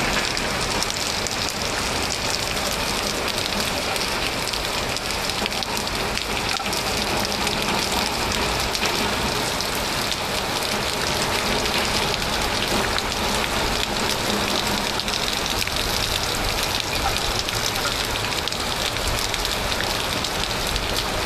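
Steady rain falling, an even dense patter of drops on surfaces.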